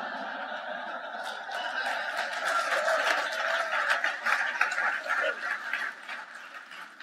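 Large audience laughing at a joke's punchline, with scattered clapping; the laughter swells about two to four seconds in, then dies away.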